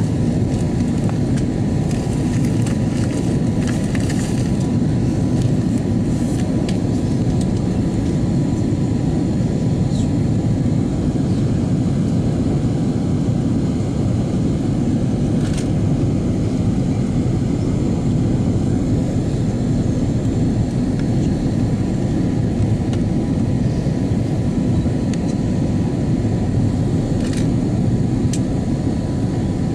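Steady in-flight cabin noise of an Airbus A330-200 heard from a window seat: a loud, even, low rush of airflow and engine drone, with a thin steady tone above it.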